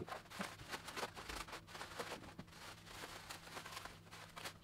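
Faint, irregular crinkling and crackling of plastic bubble wrap being handled and pulled off a telescope tube, over a low steady hum.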